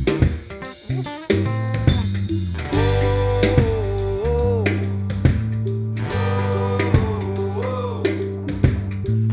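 Instrumental music: a melody with notes that bend up and down, over steady bass notes and a drum beat about once a second. PANN takes the instruments for guitars.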